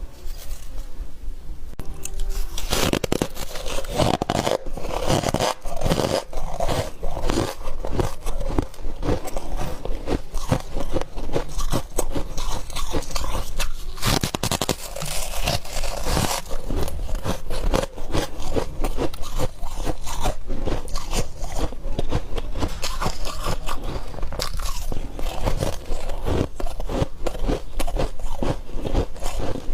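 A person biting and chewing chunks of freezer frost ice close to the microphone: a steady run of sharp, irregular crunches. The packed frost squeaks as it is bitten.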